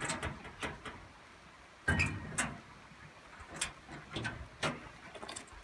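Sheet-metal engine side shield of a Case 580D backhoe being unlatched and handled by hand: a string of separate metallic clicks and clanks, the loudest about two seconds in with a short ring.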